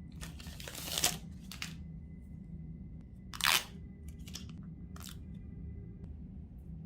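A few short crinkling, rustling handling sounds of smartphone packaging being opened and handled, over a low steady hum.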